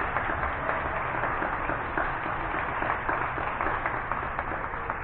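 A group of people applauding, many hands clapping together at once.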